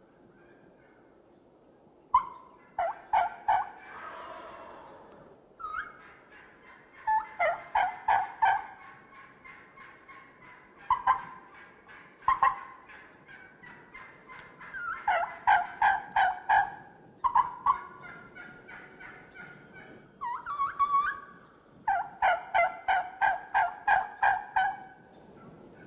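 Turkey yelping in runs of several notes, about three a second, with single clucks in between, including a longer run of about nine yelps near the end. A short hiss of noise comes about four seconds in.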